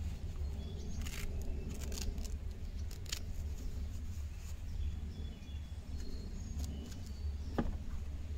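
Outdoor ambience with a steady low rumble, and a few light clicks and rattles as an FN Five-seveN Mk II pistol is handled, about 1, 2 and 3 seconds in. Faint bird chirps later on.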